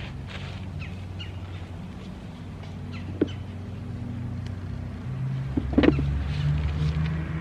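Steady low mechanical hum like a running engine, growing louder after about five seconds, with birds chirping and two sharp knocks, the louder one a little before the end.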